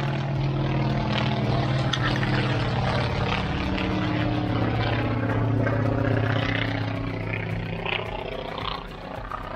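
Low-flying propeller fighter plane passing overhead, its engine drone steady and loud at first. The pitch drops as it goes by, and the sound fades toward the end.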